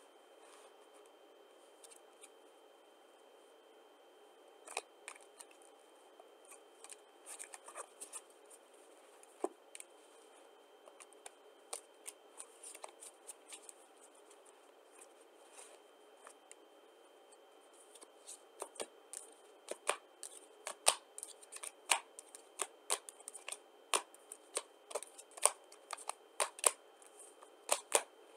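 A deck of playing cards being shuffled and handled, with scattered soft clicks and snaps. About two-thirds of the way through, a quicker, louder run of sharp card snaps begins as cards are dealt and slapped down.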